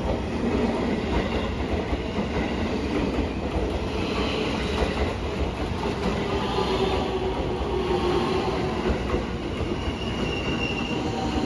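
A commuter train running slowly along the adjacent platform track, with a steady rumble of wheels and a thin, wavering squeal of wheels on rail.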